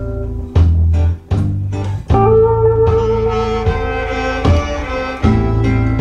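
Blues recording played back over TAD Evolution One TX floorstanding speakers: electric guitar lines over deep bass notes and a steady drum beat, without singing yet.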